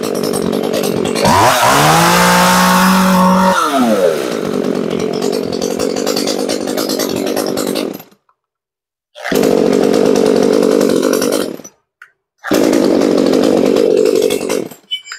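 Small two-stroke chainsaw engine revving up about a second in, held high for a couple of seconds, then dropping back and running steadily. The sound cuts off abruptly several times, leaving three separate stretches of running.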